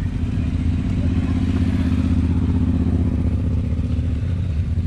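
A motorcycle engine running steadily close by, its rapid firing pulses even, swelling slightly midway.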